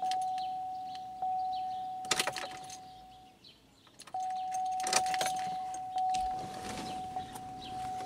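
Pontiac Aztek dashboard warning chime dinging roughly once a second with the key in the ignition; it stops briefly about three and a half seconds in and starts again as the key is turned. Keys jangle and the ignition switch clicks at about two and five seconds, with the key being cycled on and off to prime the fuel injectors.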